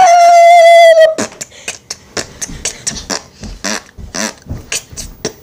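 A person's voice holds a loud, slightly falling sung note for about a second, then breaks into beatboxing: quick mouth clicks and puffs, many a second.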